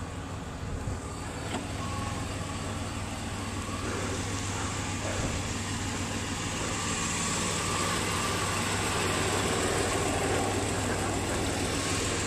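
A motor vehicle's engine idling, a steady low hum that grows gradually louder.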